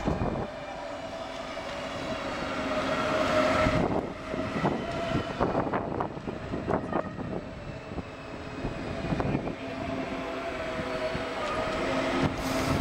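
Munich S-Bahn electric multiple unit running past and away, with a steady hum and, around the middle, a run of wheel clicks over rail joints and points.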